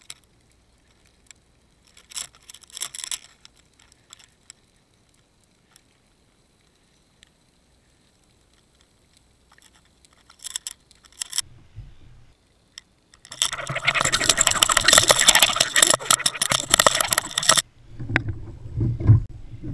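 Spinning reel's drag ratcheting as a fish takes the bait and pulls line off: a loud, dense, fast clicking lasting about four seconds, starting about two-thirds of the way in. Faint scattered clicks and scrapes come before it.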